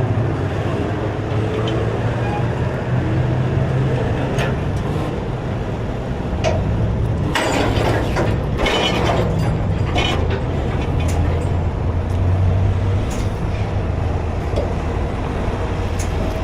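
Heavy tow truck's diesel engine running steadily, with a cluster of metal clanks and scraping about seven to ten seconds in.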